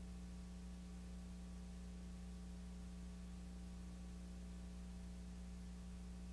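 Steady low electrical hum with faint hiss from a blank stretch of old videotape, with no programme sound.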